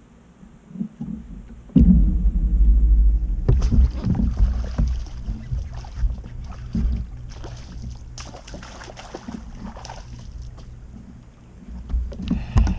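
Bass-boat sounds as a small largemouth bass is hooked and swung aboard: a heavy low rumble starts suddenly about two seconds in and eases off after a few seconds, with scattered knocks and rustles on the deck.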